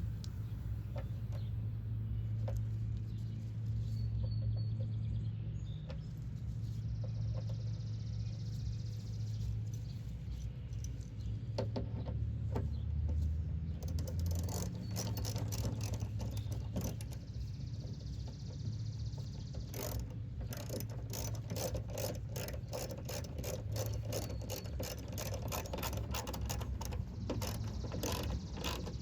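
Hand ratchet clicking in quick runs as screws are driven in, the clicks thickest near the end, over a steady low hum.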